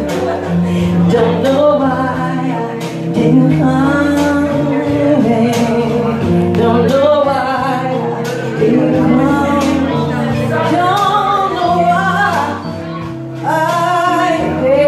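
A woman singing a slow song into a handheld microphone over steady instrumental accompaniment, the sustained chords and bass underneath her melody.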